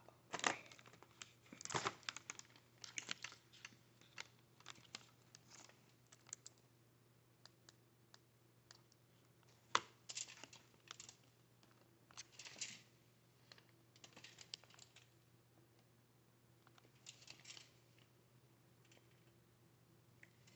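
Close-miked crackling and snapping of cooked seafood shells being cracked and peeled by hand, coming in irregular clusters of sharp clicks with short quiet pauses between them.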